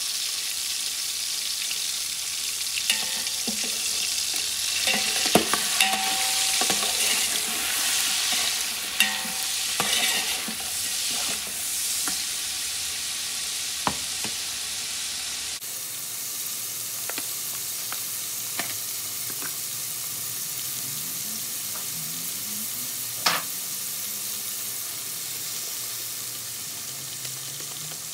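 Beef pieces on the bone sizzling in hot oil in a metal pot, with a utensil knocking and scraping against the pot as it is stirred, busiest in the first half. After a cut about halfway through, a quieter, steady sizzle with only occasional clicks.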